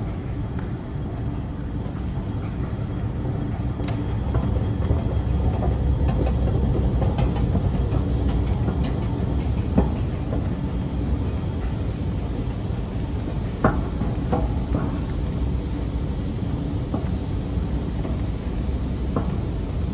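Subway train rumbling through an underground metro station, swelling a few seconds in, with a few sharp clacks over the rumble.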